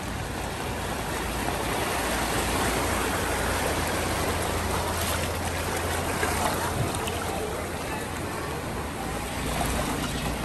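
Floodwater rushing and splashing along a flooded street, a steady watery hiss, with a low steady hum beneath it for the first several seconds.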